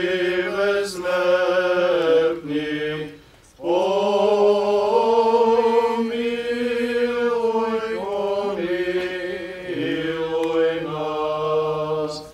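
Male voices of Eastern Orthodox priests chanting a liturgical hymn of the water-blessing service, long held notes that move slowly in pitch, with a short break about three seconds in.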